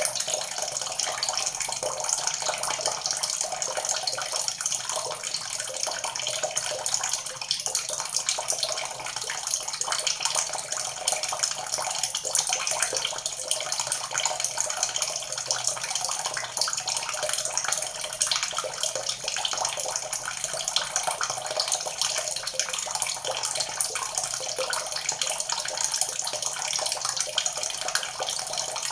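Water pouring steadily from a spout and splashing, a constant rushing hiss with no breaks.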